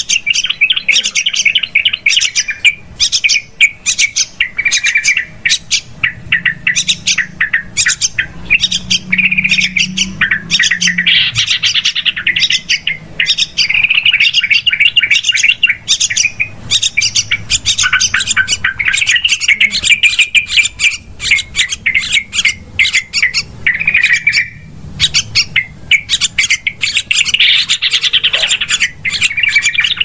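Yellow-vented bulbul (trucukan) calls in a continuous, rapid, noisy chatter, a lure recording used to attract trucukan.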